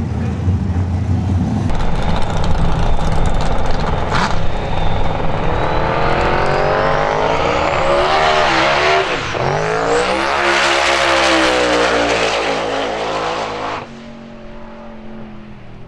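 Twin-turbo V8 of an outlaw radial Mustang drag car, running loud and then accelerating hard. Its pitch climbs with a high whine rising over it, dips once about nine seconds in and climbs again. The sound drops away sharply near the end.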